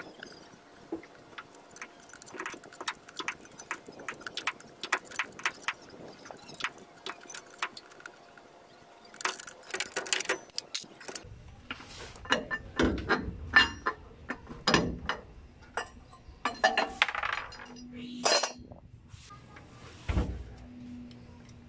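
Metal hand tools clicking and clinking against the transmission as its bolts are worked on: a run of light, quick ticks, then louder, more spaced knocks in the second half.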